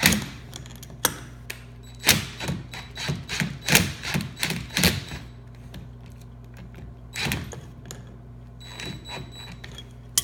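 Metal tools clicking and rattling against a trolling motor's prop nut. A dense run of quick clattering hits comes in the middle, with a few scattered clicks before and after it.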